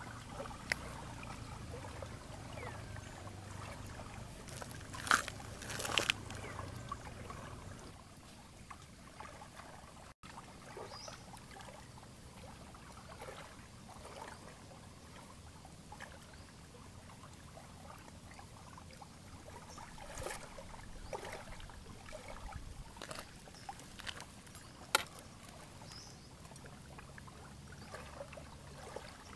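Faint lake water lapping and trickling at the shore, with a low steady hum in the first seconds and again near the end. A few sharp clicks of handling stand out, the loudest twice about five seconds in and once near the end.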